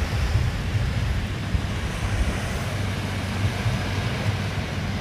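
Strong wind buffeting the microphone: a steady low rumble with a hiss above it.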